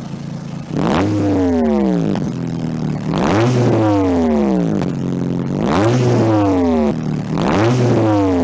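Motorcycle engine rev sound effect, repeated four times about every two seconds: each rev climbs briefly in pitch and then falls away, over steady low tones.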